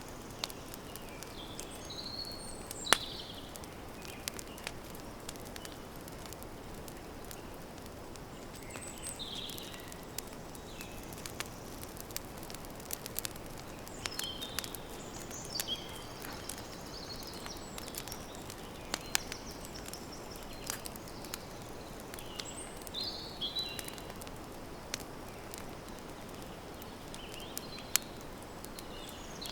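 Campfire crackling: scattered sharp pops and snaps, one much louder about three seconds in, over a steady low hiss. Small birds chirp in short high phrases several times.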